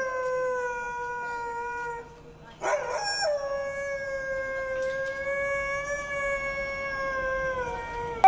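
Dog howling: a long, slowly falling howl that ends about two seconds in, then after a short pause a second long howl held almost to the end, dropping slightly as it closes.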